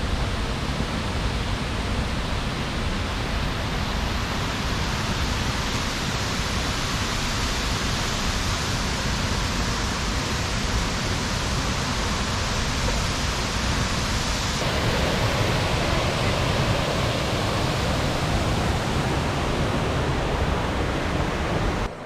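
Steady rushing roar of the Sgwd-yr-Eira waterfall, about 25 feet high, with a low rumble under the hiss. It grows a little louder and brighter about two-thirds of the way through.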